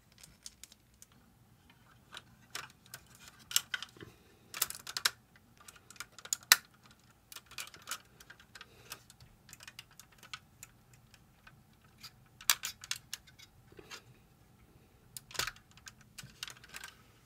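Parts of a Metal Composite Zeta Plus Hummingbird action figure clicking and clacking as it is handled and folded into its Wave Rider mode. The clicks are small and irregular, with a few denser clusters as pieces are moved and snapped into place.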